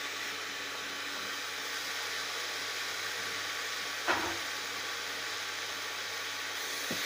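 Freshly added chopped tomatoes sizzling with a steady hiss in hot oil and masala in an aluminium pressure cooker. A single short knock sounds about four seconds in.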